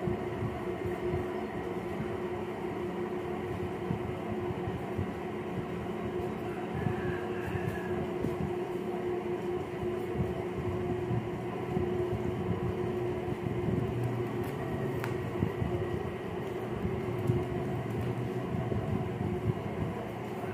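A steady mechanical hum with a fixed low tone, running evenly with no break.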